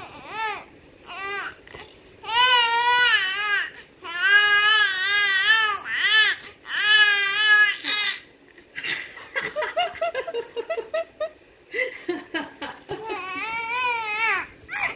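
Infant crying in a series of long, high, wavering wails. A run of short choppy cries falls in the middle.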